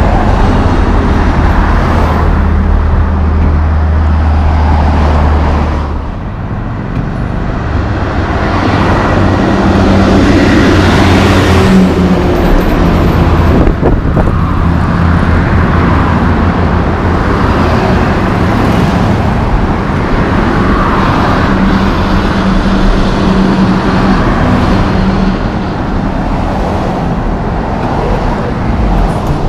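Highway traffic passing close by. A loaded log truck's diesel engine drones low as its log trailer goes past, fading about six seconds in. Then the tyre noise of passing cars and another heavy truck rises and stays steady.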